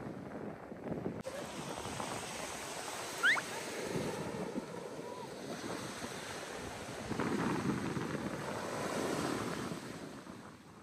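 Small waves breaking and washing up a sandy beach, with wind buffeting the microphone. The wash swells about four seconds in and again between seven and nine seconds. A short rising chirp sounds about three seconds in.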